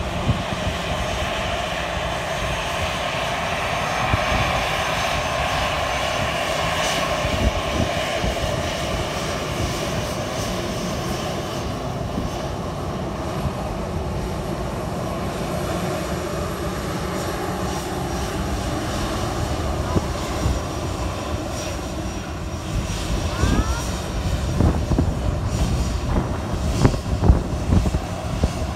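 Airbus A320-family airliner's jet engines running at taxi power as it rolls past, a steady whine and rush that fades somewhat after about twelve seconds as the plane moves away. Wind buffets the microphone in gusts near the end.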